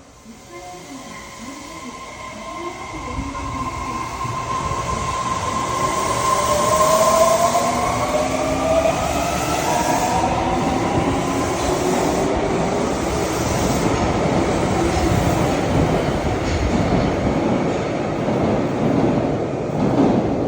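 Osaka Metro 400 series subway train pulling out of the station. Its traction motors whine, rising in pitch as it accelerates, and the sound grows louder over the first several seconds. It then settles into the steady rumble of the train running on the rails.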